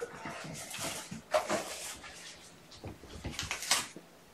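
Kittens scampering and play-fighting on a mat and among toys: irregular light thumps, scrabbles and rustles. Louder clacks come about a second and a half in and again after three seconds.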